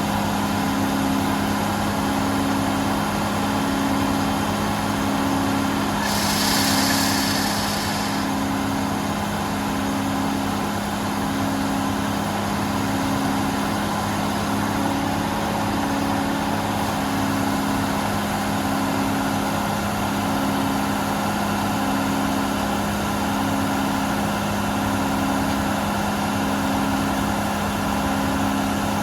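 John Deere 4440 tractor's diesel engine running steadily with the forage harvester machinery, with a low hum that pulses about once a second. A brief hiss comes about six seconds in.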